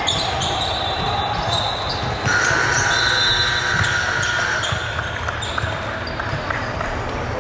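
Game sounds in a gym during a youth basketball game: a basketball bouncing on the court amid echoing hall noise, with high squeaking tones for a couple of seconds in the middle.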